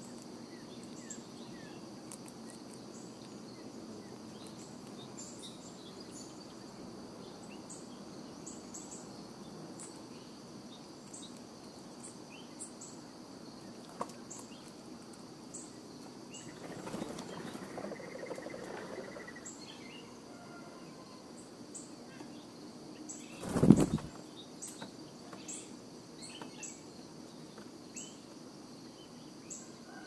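Outdoor ambience of small birds chirping in short calls throughout over a steady high hum, with a rustling scuffle about 17 seconds in and a single sudden loud thump or flutter about 24 seconds in.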